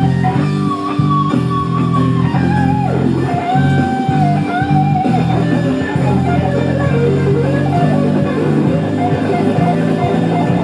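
Background rock music led by guitar over a steady bass line, with a lead guitar melody that bends up and down in pitch.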